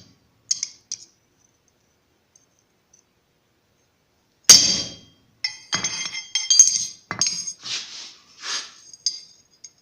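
Hammer striking a cold chisel on cold steel, scoring a line: sharp, ringing metallic clinks. Two light taps, a pause of a few seconds, then one hard blow about four and a half seconds in, followed by a quick run of strikes and a few softer ones.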